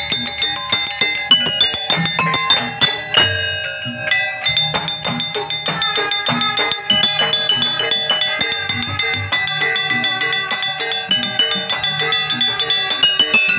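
A Javanese gamelan ensemble plays a jaranan-style gending: saron metallophones struck with wooden mallets in a busy, ringing pattern over regular low kendang drum beats.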